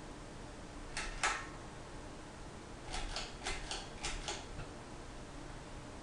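Ceiling fan's pull-chain switch clicking as the chain is pulled: two clicks about a second in, then a quick run of about six clicks between three and four and a half seconds.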